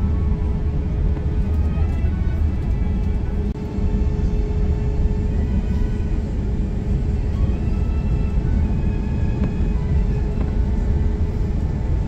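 Steady low rumble of an Airbus A350-900 taxiing after landing, heard from inside the cabin: its Rolls-Royce Trent XWB engines running at idle, with a steady mid-pitched hum over the rumble.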